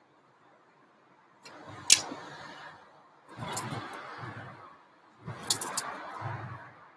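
Two small terriers scuffling over a fabric toy: three bursts of rustling and scrabbling with sharp clicks, the loudest click about two seconds in.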